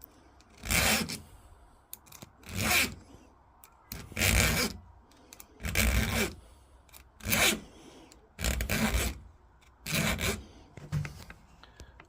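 Hand file scraped in slow, even strokes across a chainsaw chain's cutter tooth, about seven strokes one every second and a half. The file has an unusual thread-like pattern that barely grips the tooth.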